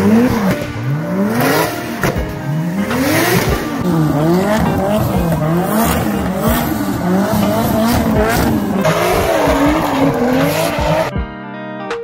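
A car engine revving up and down again and again, about twice a second at its quickest, with tyres squealing; it cuts off about eleven seconds in.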